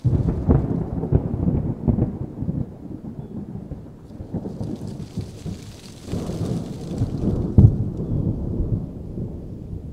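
Low rolling rumble with crackling, starting suddenly, easing off after a few seconds, then swelling again with one sharp crack about seven and a half seconds in.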